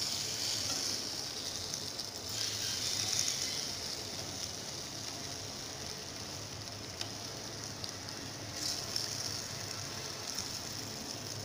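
Hot oil sizzling steadily in a frying pan as palm-fruit fritters deep-fry, with a few light clicks of a spatula turning them.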